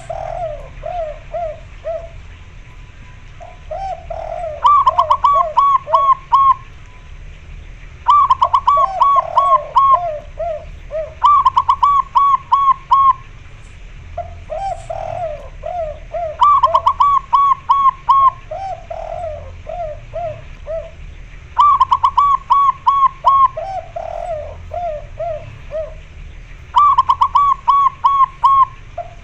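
Zebra dove (perkutut) and spotted dove (derkuku) cooing back and forth. Loud, quick runs of five to seven coos alternate with lower, slower runs of about five coos, each phrase lasting one to two seconds, about six of each.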